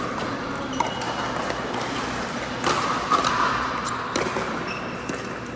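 Pickleball paddles striking a plastic pickleball in a rally: several sharp pops a second or more apart, over a steady background hubbub.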